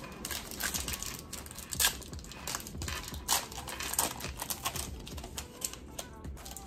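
Foil Yu-Gi-Oh booster pack crinkling and crackling in the hands as it is torn open, in a dense run of sharp crackles.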